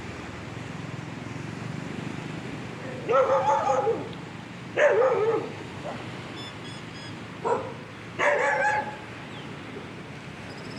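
Dogs barking in four outbursts over steady background noise: two longer bouts about three and five seconds in, then a short bark and another bout near the end. These are local dogs quarrelling over their territory.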